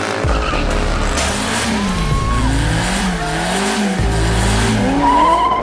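A car engine revving up and down several times in a row during a tyre-smoking burnout, under background music.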